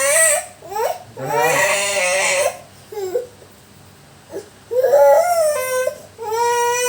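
Young child crying in several bursts while being massaged, with a brief quieter lull of small whimpers and breaths about halfway through.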